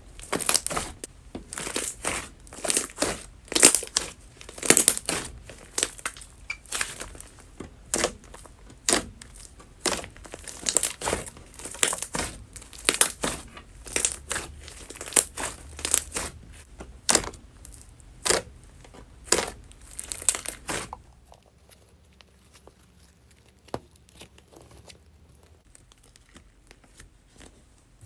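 Tapioca slime being squeezed and pressed by hand, giving a crackling, crinkly squish about once a second. The squishing stops about 21 seconds in, leaving only a few faint clicks.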